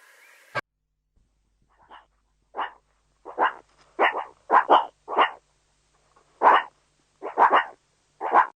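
A canine barking: a run of about a dozen short, sharp barks, sparse at first and then coming quicker, some in close pairs.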